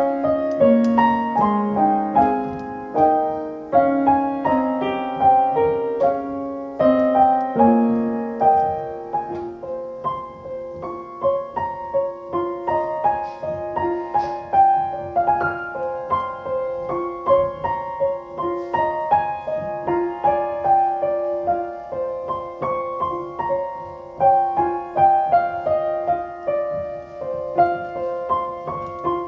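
Solo piano music: a melody over steadily repeated notes, with the lower notes dropping out about eight seconds in.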